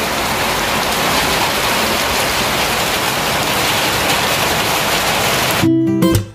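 Steady rain falling on a paved courtyard floor, an even hiss of rain. About five and a half seconds in it cuts off and acoustic guitar music begins.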